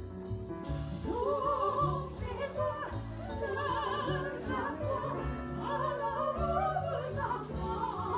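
Classical operatic singing with a strong vibrato over instrumental accompaniment. The voice comes in about a second in, after a short instrumental passage.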